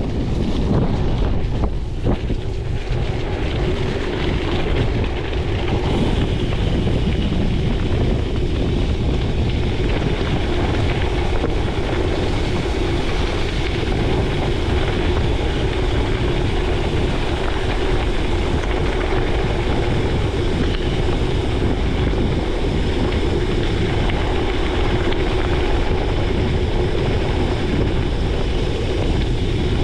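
Steady wind noise on a chest-mounted action camera's microphone, mixed with the rumble of a gravel bike's tyres rolling over gravel.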